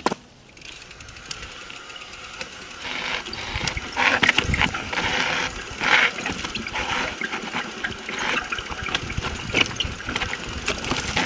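Norco Range mountain bike rolling down a granite rock slab: tyre noise on the rock, the bike rattling over bumps and wind rushing past, louder as speed builds about a third of the way in, with a sharp knock right at the start.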